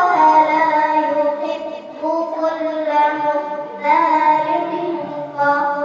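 A young reciter's voice chanting the Qur'an in the melodic tilawah style, holding long notes that step and waver in pitch, with short breaks between phrases.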